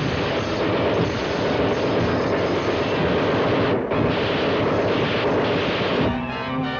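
Cartoon sound effect of a flying robot's engine: a loud, steady rushing noise with a brief break about four seconds in. Near the end it gives way to orchestral music.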